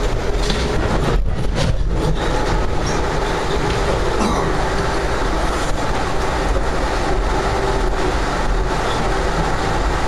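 Amtrak Empire Builder passenger car running at speed, heard from inside the car: a steady rumble of wheels on the rails with a low hum and scattered clicks.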